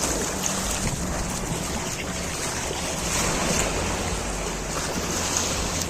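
A boat's engine running steadily at low speed, with waves washing against the hull and wind buffeting the microphone.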